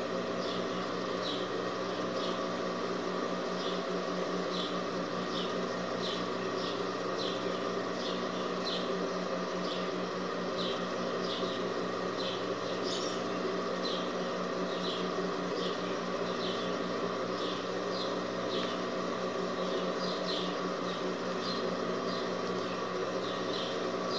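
Industrial sewing machine's motor running idle with a steady electric hum, not stitching. Short high chirps recur about once a second over the hum.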